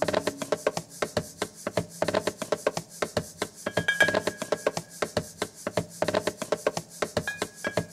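A pair of wooden maracas shaken in quick, uneven strokes, several per second.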